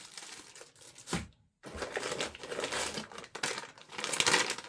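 Plastic packaging crinkling as packed parts are handled. There is a sharp knock about a second in, followed by a moment of dead silence, then the crinkling grows busier.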